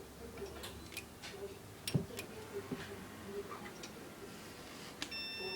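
Scattered, irregular clicks, then about five seconds in a steady electronic beep starts on a Windows Vista PC. This is the unexplained beeping the computer has been making.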